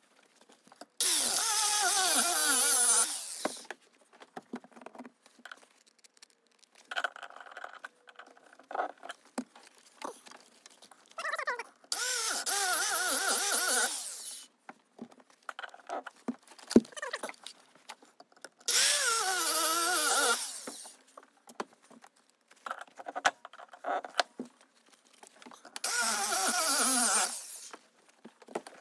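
Cutoff wheel cutting through a rust-seized upper shock absorber nut on the shock shaft, in four bursts of two to three seconds each. At the start of each burst the motor's pitch drops as the wheel bites into the metal.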